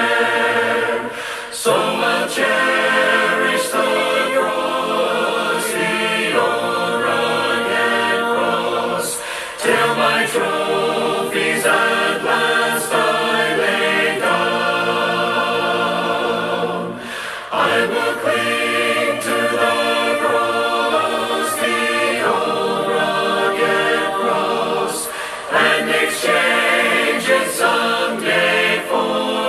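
A choir singing a hymn a cappella in several voice parts, in long phrases broken by brief pauses about every eight seconds.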